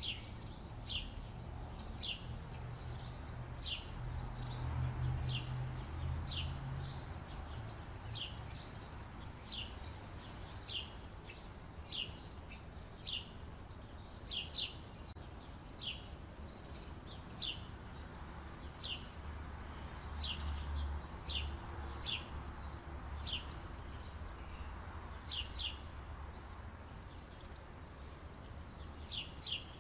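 A bird chirping: short, high, sharp chirps about once a second, some coming in quick pairs, over a low rumble.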